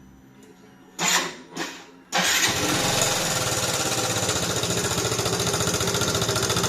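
Yamaha XMAX scooter's single-cylinder four-stroke engine cranking briefly twice, then starting about two seconds in and running with a fast, even rhythm. The noise comes from the cylinder head: a rocker arm roller with play lets the valve adjusting screws tap the valves, and the camshaft is worn.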